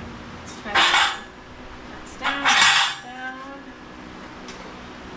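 Sheet metal clattering and scraping twice, about a second and a half apart, the second time longer and ringing on briefly afterwards.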